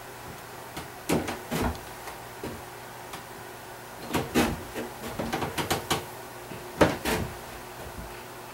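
Electric wax iron pushed along a ski base in a vise during hot waxing, its second pass over the racing wax: short scrapes and knocks about a second in, a quick cluster from about four to six seconds, and another near seven seconds.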